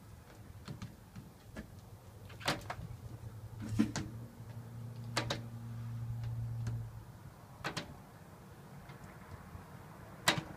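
Squeegee being worked side to side across sliding-door glass: several sharp knocks or squeaks, a few seconds apart, as the blade is drawn over the pane and meets the frame. A steady low hum sounds for about three seconds in the middle.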